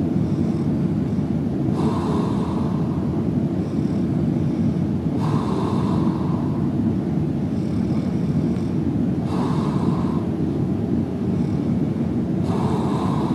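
A man snoring softly through an open mouth, four breaths about three and a half seconds apart, over a steady low rumble that is the loudest sound throughout.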